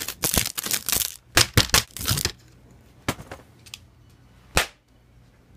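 Shattered pieces of a broken Asus laptop crunching and crackling as they are pressed and dug into. There is a dense run of small snaps, like Pop Rocks candy, for about two seconds, then a few separate snaps.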